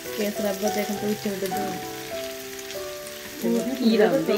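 Dried fish and onion sizzling in a frying pan as they are stirred with a spatula, under background music with a melody of held notes; a voice comes in near the end.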